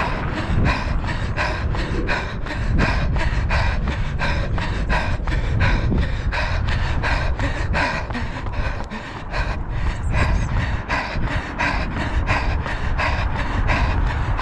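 A runner at hard tempo pace: footfalls on the asphalt path in an even rhythm of about three a second, with heavy panting breaths, over wind rumbling on the camera's microphone.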